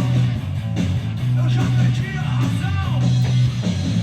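Rock music playing, with guitars and a steady bass line.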